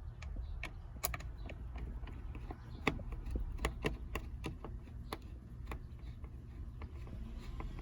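Irregular small clicks and taps as plastic sunroof trim covers and their fittings are handled and fitted into place, over a steady low rumble.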